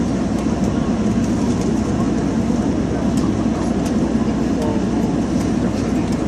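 Steady airliner noise heard from inside the passenger cabin, a constant rumble with no rise or fall, with faint voices in it.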